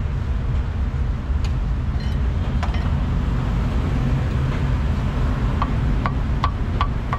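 Steady low rumble of road traffic, with a meat cleaver knocking on a wooden chopping block: two single chops early, then a quick run of about five chops, roughly two or three a second, near the end.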